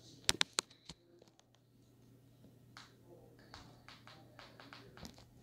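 Four sharp clicks or taps in the first second, then fainter scattered ticks, over a faint steady low hum.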